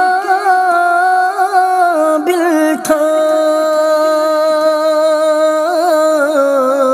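A solo voice singing an Urdu naat (devotional song in praise of the Prophet) as background music, holding long, wavering, ornamented notes.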